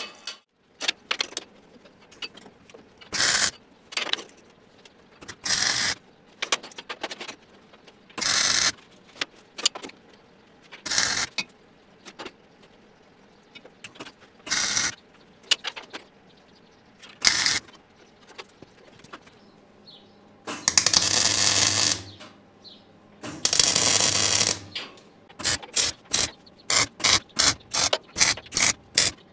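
Electric arc welder setting tack welds on the steel plates of a fixture welding table. It makes a series of short hissing bursts under a second each, a few seconds apart, then two longer welds of about a second and a half each with a low hum under them, and a fast run of very short bursts near the end.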